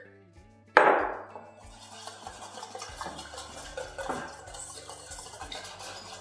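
A sharp knock about a second in, then a spoon stirring and scraping around a stainless steel bowl of thick peanut sauce, with many small clinks. Soft background music underneath.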